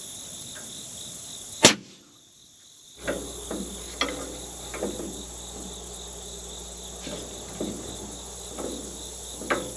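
Crickets chirring steadily, with one sharp click a little under two seconds in. After a brief drop-out, a series of short metallic clinks about once a second as a combination wrench is worked on the AC and hydraulic line fittings of a new condenser.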